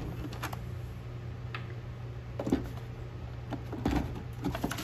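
Scattered light clicks and knocks of the plastic housing of an old Rain Bird sprinkler controller being handled and lifted off its mounting screws, about five in all.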